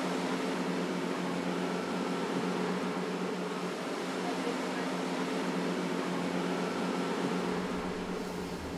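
A motorboat's engine running steadily under way, heard from inside the wheelhouse as an even hum. Near the end, low wind and rushing water come in.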